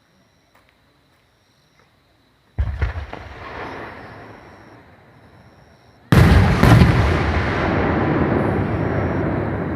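Aerial fireworks bursting close by: one sharp bang about two and a half seconds in, then a louder bang about six seconds in with another right after it, each followed by a long rumbling echo.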